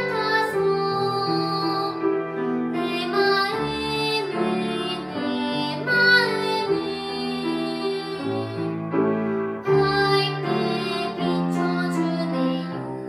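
A young girl singing solo in a trained classical style, accompanied on grand piano, holding long sustained notes.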